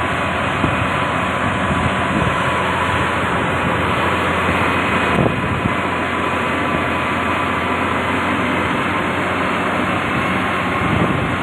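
Heavy diesel engine of road-building machinery running steadily, with one brief knock about five seconds in.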